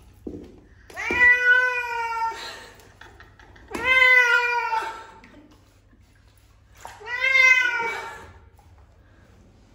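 Ragdoll cat giving three long, loud meows a couple of seconds apart while being bathed. Each call rises and then falls in pitch: drawn-out protest calls of a cat that wants out of the water.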